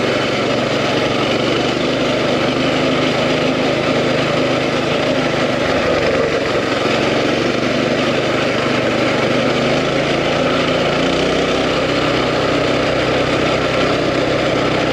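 Coleman CT200U mini bike's 196 cc single-cylinder four-stroke engine running steadily while the bike is ridden, its note shifting slightly about eleven seconds in.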